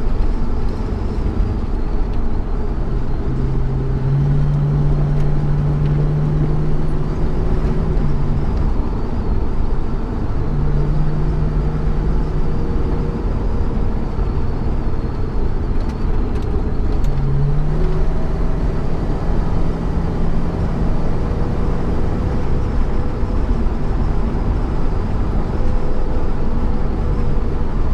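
Holden HK sedan driving, heard from inside the cabin: a steady low engine and road rumble, with the engine note stepping up and falling back several times as the throttle is worked.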